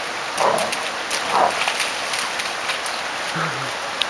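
Two Alaskan malamutes scuffle and splash in shallow floodwater over the steady rush of flowing flood water. Two louder bursts of splashing and scuffling come in the first second and a half, and a short low grunt from a dog comes near the end.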